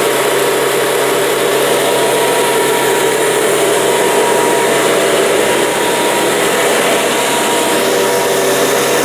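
Dresser 25 hp electric air compressor (model 25SST, 480-volt three-phase) running steadily, a loud, even machine noise with a constant hum.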